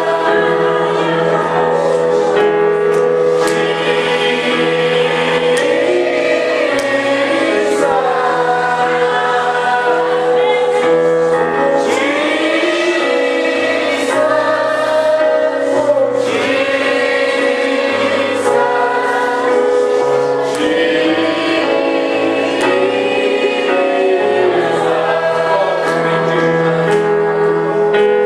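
Gospel choir singing with band accompaniment: sung lines rising and falling over held chords, a bass line stepping between notes and light percussion hits.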